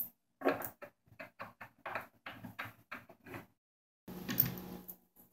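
Hand-assembly handling noises as a foosball table leg is fitted to the cabinet corner and its bolts started: a run of short clicks and scrapes at about three a second, then a few knocks and rubbing after a brief pause about four seconds in.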